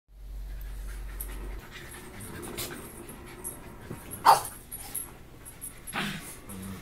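Small dogs play-fighting: panting and scuffling, with one brief, sharp, louder sound about four seconds in and short low sounds near the end.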